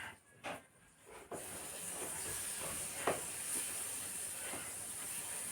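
A few short soft sounds, then a steady hiss that starts about a second in and holds even.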